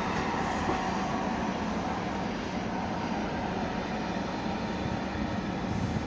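Electric multiple-unit train rolling slowly over the rails: a steady rumble of wheels on track.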